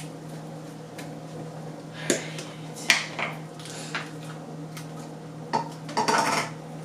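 Slime being mixed: a handful of short, scattered squishing and clicking sounds, heaviest near the end, over a steady low hum.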